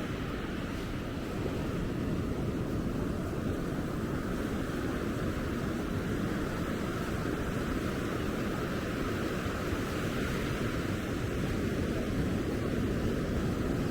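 Steady, even wash of ocean surf breaking on a sandy beach, with no separate events standing out.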